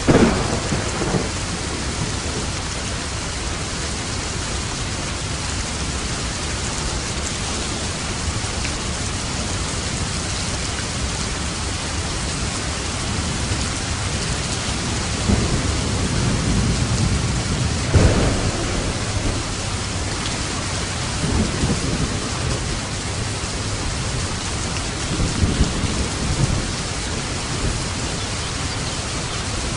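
Steady heavy rain with rolls of thunder: a sharp clap right at the start, a long rumble building through the middle to a crack just past halfway, then a few softer rumbles later on.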